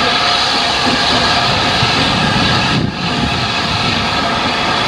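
Hunslet Austerity 0-6-0 saddle tank steam locomotive working hard as it approaches with its train: a loud, steady rush of exhaust and steam, with a brief dip about three seconds in.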